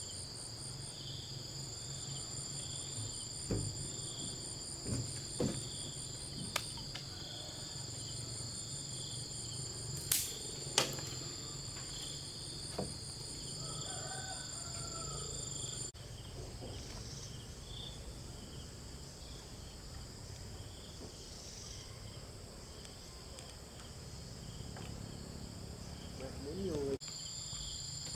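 Insects chirping in a steady, shrill chorus, some pulsing evenly, with a few scattered clicks and knocks over a low rumble.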